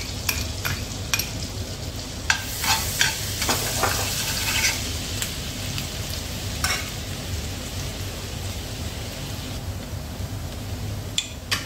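Grated garlic sizzling in hot oil and butter in a frying pan, with a spoon clicking and scraping against the pan and bowl now and then as it is stirred.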